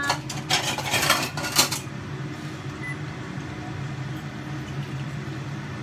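Kitchenware clattering: a few sharp knocks and scrapes in the first two seconds, then only a steady low hum.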